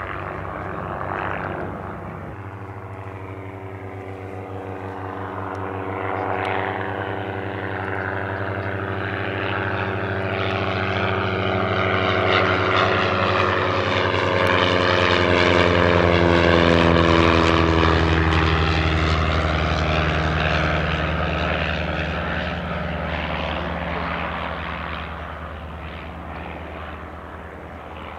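A Piper L-4 Grasshopper (J-3 Cub) and a Cessna L-19 Bird Dog flying past together, their Continental flat-four and flat-six piston engines and propellers droning. The sound grows louder to a peak a little past halfway, then drops in pitch and fades as the pair passes.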